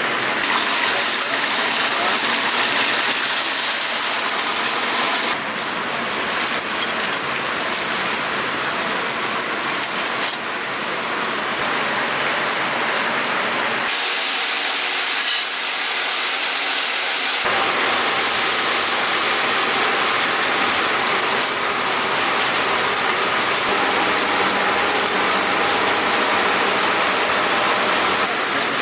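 Hot oil sizzling and crackling steadily as chickens deep-fry in a cauldron, with the hiss changing abruptly a few times between shots.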